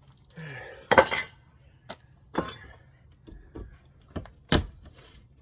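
Demolition debris and tools being handled: a few separate knocks and clinks, the loudest about a second in, with smaller clicks between.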